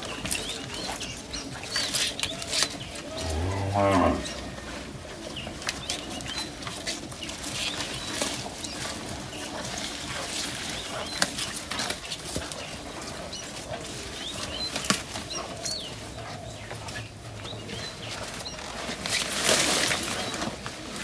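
A cow moos once, about a second long, a few seconds in. Around it, cattle chew and rustle the green fodder they are eating, with a louder rustle of leaves near the end.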